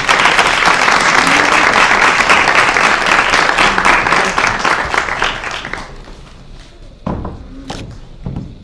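A crowd applauding with dense clapping that fades out about six seconds in, followed by a few sharp footsteps, heels on a wooden floor.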